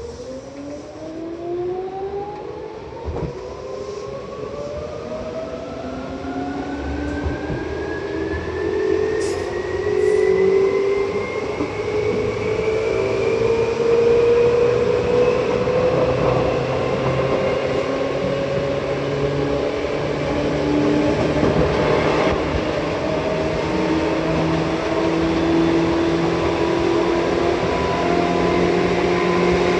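Seibu 2000 series electric train accelerating, heard from inside the car: the traction motor and gear whine rises steadily in pitch for about twenty seconds and then levels off, while the running noise grows louder.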